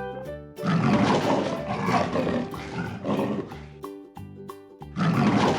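A panther roaring twice over light background music: one long, rough roar starting about half a second in, and another near the end.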